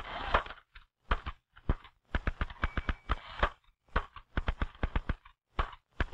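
Manual typewriter in use: a brief rattling rush at the start as the carriage is tabbed across, then keys striking the platen in quick runs of sharp clacks with short pauses between.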